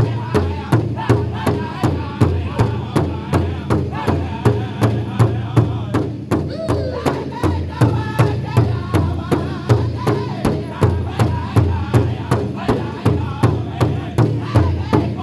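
Powwow drum group: several men striking a large hide drum together at an even beat of about three strokes a second, while singing loudly in high, strained voices over it, with one voice sliding down in pitch about six seconds in.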